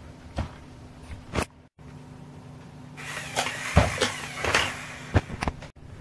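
Plastic Lego Technic parts of a model road roller clicking and knocking as they are handled, with a stretch of rustling handling noise and several louder knocks about three to five seconds in.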